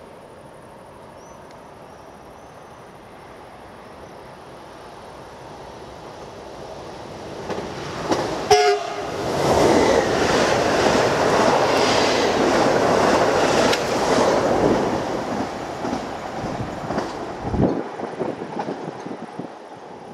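PKP Intercity ED160 (Stadler FLIRT) electric multiple unit approaching and passing through the station at speed: a short horn blast about eight seconds in, then a loud rush of wheels on rail and air as the cars go by, fading away near the end.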